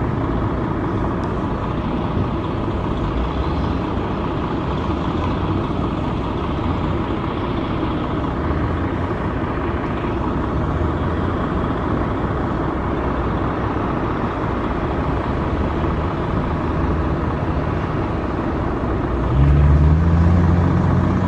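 Steady road traffic noise, with a nearby vehicle's engine growing louder and rising a little in pitch near the end.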